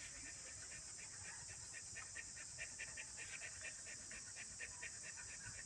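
A puppy panting rapidly in quick, even puffs, over a steady high hiss.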